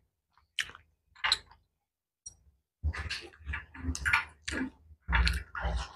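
Close-up chewing of food: crisp, wet crunching bites, a couple of separate ones at first, then a dense run of chewing from about three seconds in.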